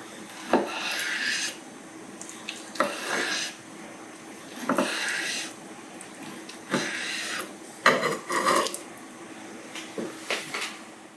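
Repeated scraping strokes, about one every second or two and each under a second long, like a hard edge rasping against a surface, over a faint steady hum.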